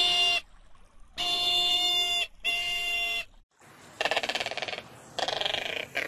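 Crested caracara calling: three harsh, steady-pitched calls of about a second each, then rapid rattling calls in the last two seconds.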